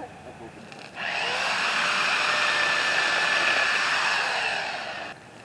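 Chainsaw cutting a tree, running steadily for about four seconds from about a second in, then easing off and stopping.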